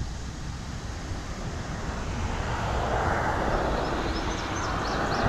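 A vehicle passing on the road: a steady low rumble with a tyre hiss that swells from about halfway through and is still rising at the end. A few faint short high chirps come near the end.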